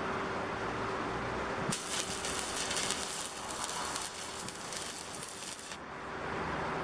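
Stick (arc) welding on a steel bracket: the electrode arc crackles and hisses for about four seconds, starting a couple of seconds in and cutting off sharply, over a faint steady hum.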